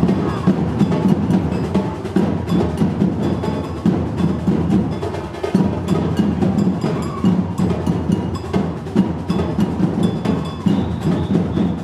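Batucada percussion group playing drums together in a dense, steady rhythm, with deep drum strokes and sharp knocks over them.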